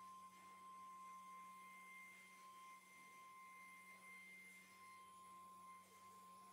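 Faint, steady high whine with a fainter overtone from a CNC router with a 3.5 kW air-cooled spindle, running while it engraves MDF.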